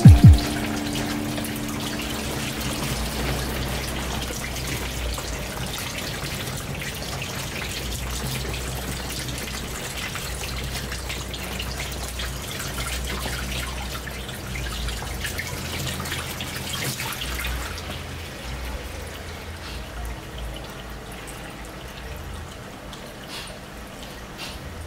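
Water from a rubber hose spraying and trickling over a silkscreen mesh, washing the unexposed photo emulsion out of the exposed stencil. The flow is steady and eases off somewhat in the last several seconds.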